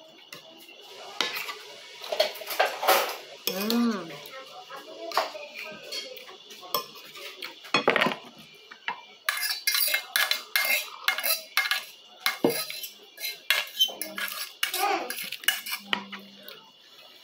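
Metal spoon clinking and scraping against a plate while scooping up food, a run of short clinks that comes thickest in the second half.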